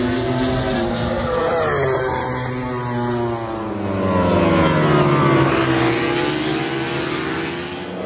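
MotoGP prototype race motorcycles running hard past the track edge, their engines revving up and down through the gears. The pitch rises and falls as the bikes accelerate and go by, and it is loudest about five seconds in.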